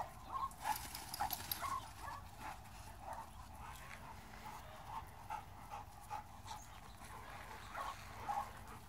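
Pit bulls and a small pit bull–Chihuahua mix playing, giving short, scattered yips and whines, most of them in the first two seconds and again toward the end.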